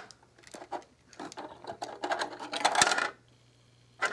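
Small plastic pieces of a glow-in-the-dark cave bear skeleton toy clicking and rattling in the hands as they are fitted together, with a denser run of clatter and rustling from about one second in to about three seconds in.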